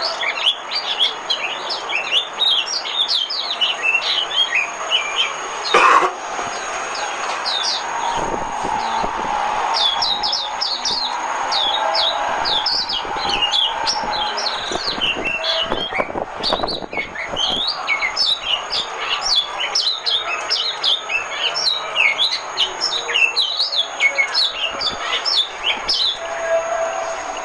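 White-eye (vành khuyên) singing a rapid, continuous stream of high, downward-slurred chirps and twitters, the chattering song used as a lure for trapping white-eyes. A single sharp click cuts in about six seconds in.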